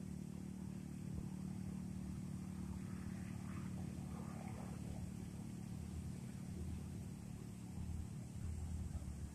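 A motor engine running steadily, a low hum with a held pitch, swelling slightly near the end.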